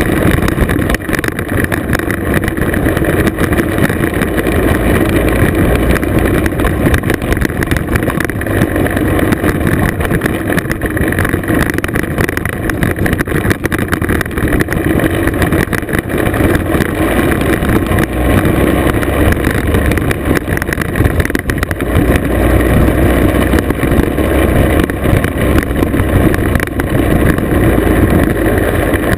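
Classic two-stroke scooter engine running steadily at riding speed, mixed with wind noise on the mounted microphone and tyres rolling on a gravel and dirt road.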